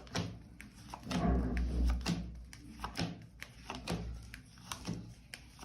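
Tarot cards being handled and drawn from the deck: a run of soft taps and clicks as the cards are flicked and laid down, with a low rumble between about one and two seconds in.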